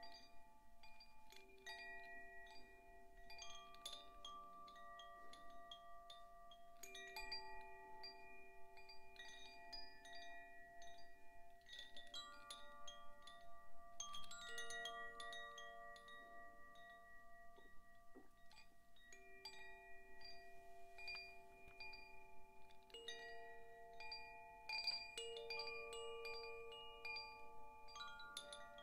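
Zaphir Sufi chime ringing softly. Its notes are struck in irregular clusters and left to ring and overlap, with a light tinkle of high strikes.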